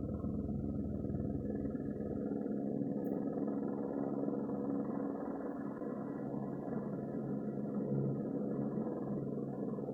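Electronic sound-effect device playing a steady, low, engine-like drone with several held tones; the deepest rumble drops away about two seconds in.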